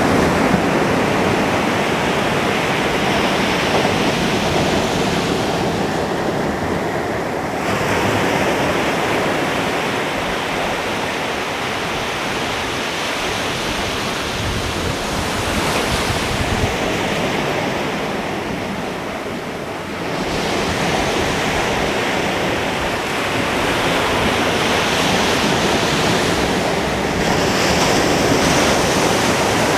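Ocean surf breaking on a beach, a continuous wash of waves that swells and ebbs every several seconds, with wind buffeting the microphone.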